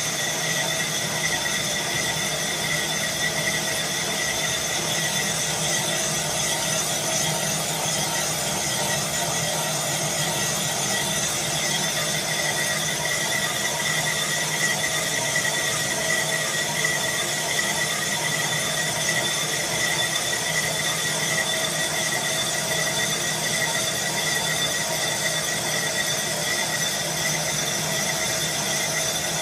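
Boxford STS lathe turning a Stuart steam-engine flywheel, the cut giving a steady high-pitched squeal over the lathe's running noise.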